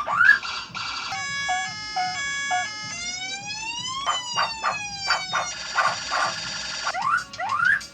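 A starling (jalak) mimicking a police escort siren: quick rising whoops, then a run of short stepped tones, a long rising and then falling wail, and more quick rising whoops near the end.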